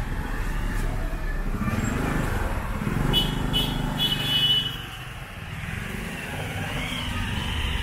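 Street traffic with motorcycles and cars passing close by, their engines getting louder in the middle. A few short high beeps come about three to four and a half seconds in.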